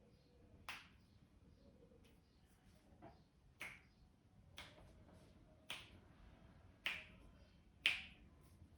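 A series of sharp snaps from a barber's hands during a head massage, about one a second, with the last two the loudest.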